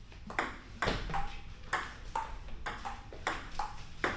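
Table tennis rally: a celluloid-type plastic ball clicking back and forth off paddles and the tabletop, about ten sharp hits in quick succession starting about half a second in, the table bounces leaving a brief hollow ring.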